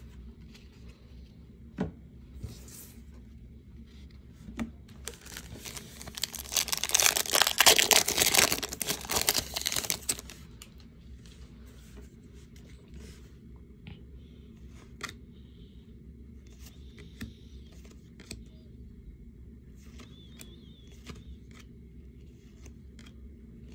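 An NBA Hoops trading card pack wrapper being torn open and crinkled for about five seconds in the middle. Before and after it come scattered small clicks and slides of the cards being handled.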